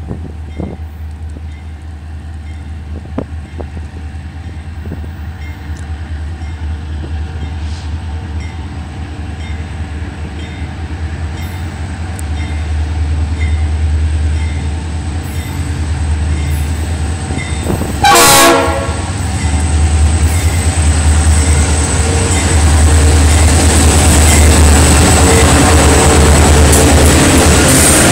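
Two EMD diesel locomotives, an SD40-2 and a GP38-2, approaching with a steady low engine rumble that grows louder as they close in. One short horn blast sounds about two-thirds of the way through. Near the end the engines and wheels pass close and loud, with a high steady whine.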